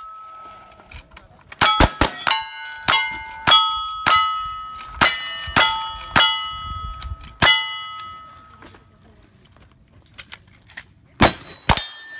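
A fast string of about ten gunshots at steel targets, roughly one every half second, most followed by the ringing clang of the hit steel plate. A pause follows, then two more shots near the end.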